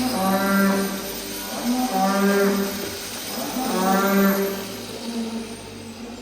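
Cow mooing repeatedly: three loud calls of about a second each, roughly two seconds apart, then fainter lower calls near the end.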